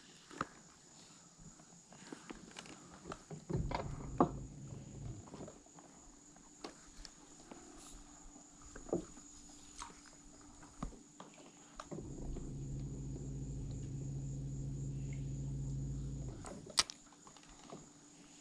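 Electric bow-mounted trolling motor humming steadily, briefly about four seconds in and again for about four seconds in the second half, as the boat is eased along a dock. Scattered small clicks of rod and reel handling between the spells, with a faint steady high-pitched whine underneath.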